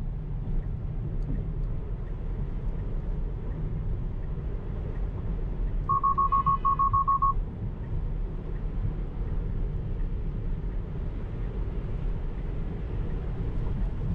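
Tesla cabin at freeway speed with a steady road and tyre rumble. About six seconds in comes a rapid string of high beeps lasting about a second and a half: the car's audible collision warning as corrective steering is applied to avoid a potential collision.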